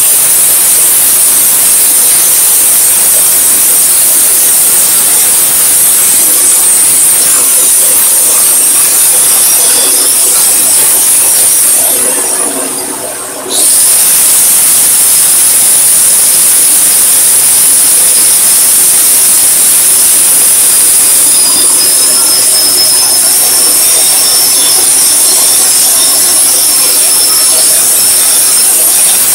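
Electric welding arc: a loud, steady hiss that fades briefly about twelve seconds in, then starts again abruptly as the arc is struck again.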